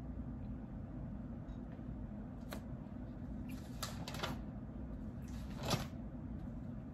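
A few faint, scattered clicks from work at a computer desk, over a steady low hum: one about two and a half seconds in, a short cluster near the middle and a pair near the end.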